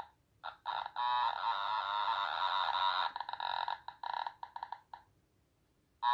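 Otamatone playing an imitated sound effect. It starts with a few short blips, holds a wavering, buzzy note for about two seconds, then breaks into a string of quick choppy notes that stop about five seconds in.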